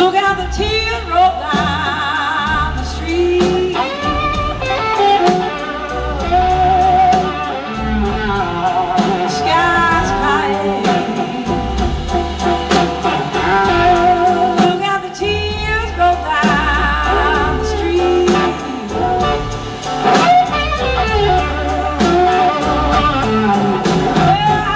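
Live blues-rock band playing: wavering electric guitar lines over bass and drums, loud throughout.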